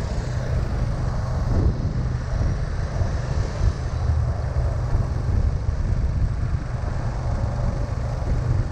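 Steady low rumble of wind on the microphone, mixed with vehicle noise.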